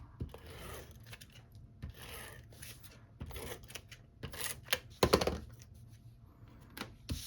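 Paper and cardstock being handled on a craft table: short rustles and slides with a few light taps and clicks, the loudest about five seconds in.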